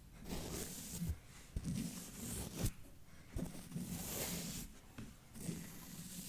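ASMR microphone brushing and scratching: repeated soft swishes and scrapes across the mic, layered with slow wet mouth sounds and a few sharp clicks.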